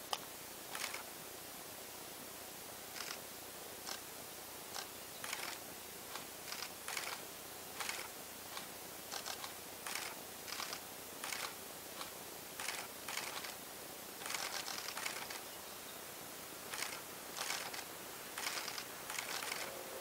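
Camera shutters clicking irregularly, mostly single shots with a short rapid burst in the middle, over a faint steady hiss.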